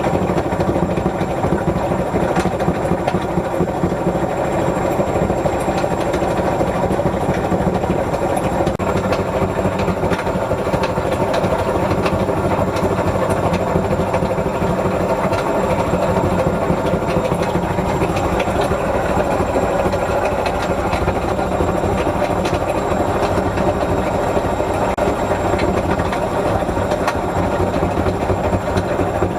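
Whirlpool washing machine running a 60 °C cotton wash, with a loud, steady mechanical rumble from the drum and motor.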